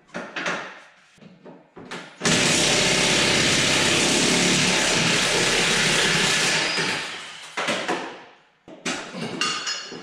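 Impact wrench hammering steadily for about four seconds on the car's rear suspension, then winding down, with short metallic tool clinks before and after.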